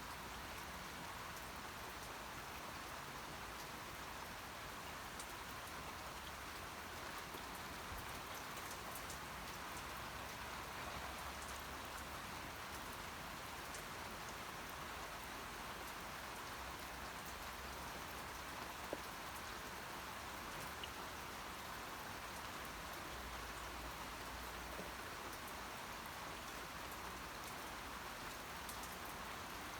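Steady rainfall: an even hiss of rain with scattered drop ticks on surfaces.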